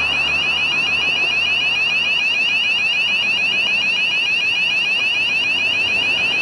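Level-crossing warning alarm sounding: a loud, high yelping tone made of short rising sweeps repeated rapidly, warning road traffic of an approaching train. A passing car's engine fades out about two seconds in.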